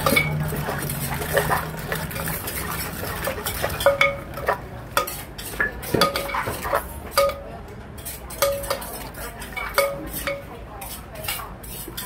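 Metal spoon scraping and clinking against the inside of a large clay mortar as papaya-salad dressing is stirred and worked with a wooden pestle. The knocks come irregularly, some ringing briefly.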